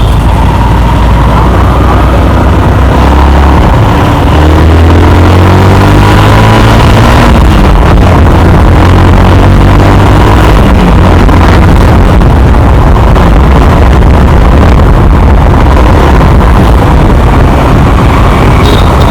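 Yamaha R15 V2's single-cylinder engine running while the motorcycle is ridden, climbing in pitch a few seconds in as it accelerates, then holding steady, under a heavy low wind rumble on the microphone.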